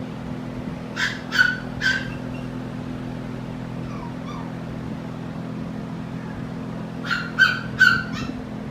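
A dog barking in two bursts of three quick barks, one about a second in and one near the end.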